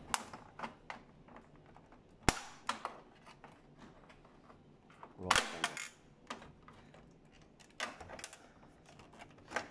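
Sharp plastic clicks and knocks from the side cover of a Fuji Xerox DocuPrint CM225 printer being pried off with a screwdriver, its clips snapping loose; the loudest snap comes about two seconds in.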